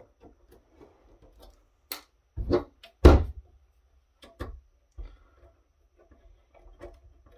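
Knocks and clunks of a metal firewall chassis being handled and turned over on a table, the loudest a thump about three seconds in, then faint clicks of a screwdriver being fitted to a screw.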